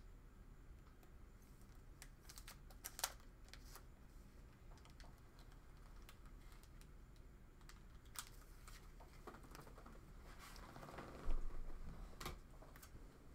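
Faint, scattered light clicks and taps of small hard objects being handled, with a brief louder clatter about eleven seconds in.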